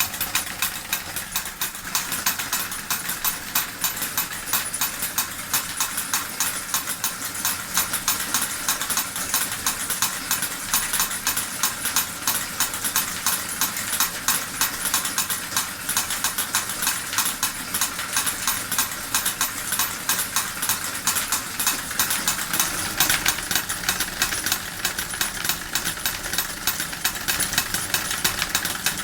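Model steam engine running and driving two small model forging hammers, which clatter in a fast, even rhythm of sharp knocks over the steady mechanical running.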